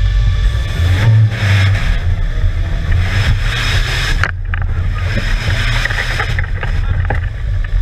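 Off-road trial vehicle's engine running hard under load, heard from inside the open cab, with loud rushing stretches of noise as the vehicle churns through mud.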